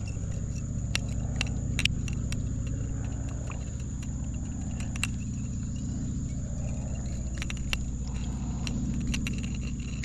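A steady low rumble under a thin high drone of insects, with scattered small clicks and taps as a hooked smallmouth bass is handled on the line.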